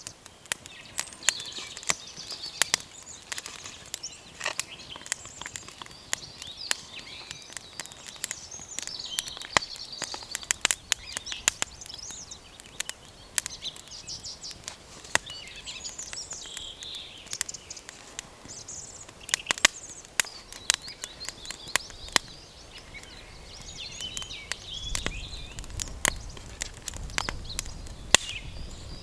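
Wood fire crackling and popping, with sharp irregular cracks throughout, while songbirds chirp and sing in the background.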